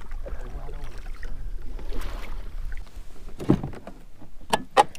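Handling noise on a fishing kayak: a low rumble, then a few sharp knocks against the hull in the last second and a half.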